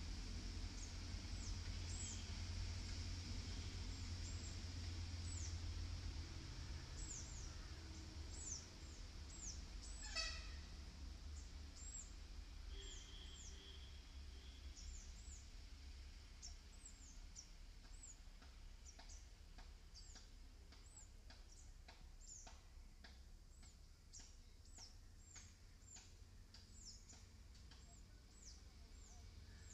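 Faint outdoor ambience: small birds chirping over and over in short, high, falling notes, with one louder call about a third of the way in, over a low rumble that fades after the first few seconds.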